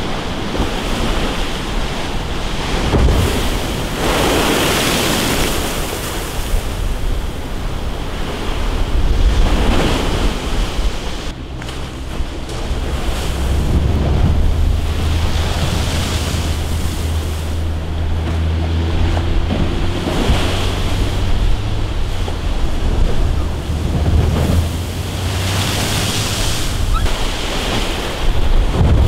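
Big storm waves from an offshore hurricane breaking and washing against a concrete sea wall, the surf surging every few seconds. Wind buffets the microphone with a low rumble, heaviest midway through.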